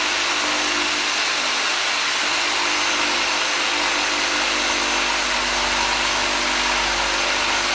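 Jigsaw running at a steady speed, its blade cutting a cope along the profile of painted baseboard trim.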